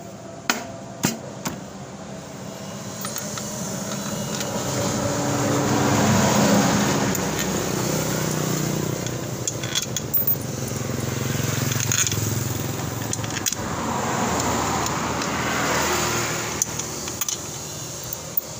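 A few sharp metal clicks as the CVT cover is handled and fitted, then motor vehicles passing, their noise swelling and fading three times.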